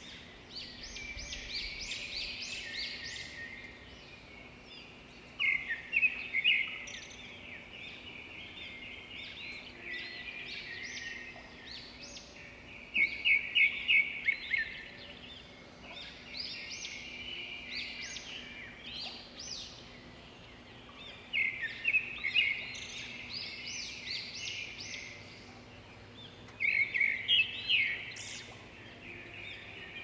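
House sparrows chirping, with loud runs of quick chirps every five to eight seconds and softer chirping in between.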